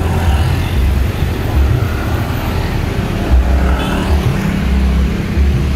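Diesel bus engine running close by, a steady low hum under uneven low rumbling.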